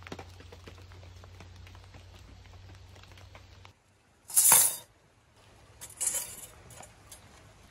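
Long flat metal kebab skewers clattering against each other and the stone tabletop as they are handled, with a loud clash about four and a half seconds in and a second one around six seconds. Before that there is a faint low hum with light ticking.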